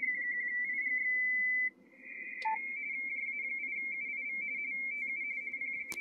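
Amateur radio RTTY signal on the 17 m band heard from a Yaesu transceiver's speaker. It opens with a steady single tone that eases slightly lower in pitch as the receiver is tuned, then cuts out about a second and a half in. After a click and a short lower beep, the two-tone warble of RTTY data follows, switching rapidly between two close pitches.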